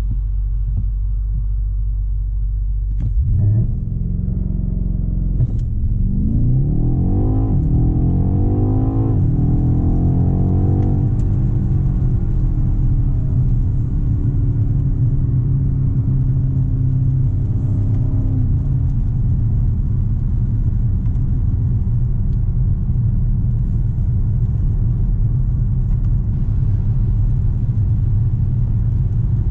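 BMW X6 M Competition's 4.4-litre twin-turbo V8 heard from inside the cabin under full-throttle acceleration. Engine pitch climbs in several quick rising sweeps, each cut off by an upshift of the 8-speed automatic. It then settles into a steady low drone with road noise at speed.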